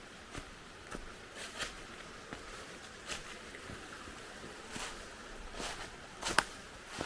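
Footsteps of a person walking outdoors, irregular crunching steps about one or two a second, with one sharper step near the end, over a faint steady hiss.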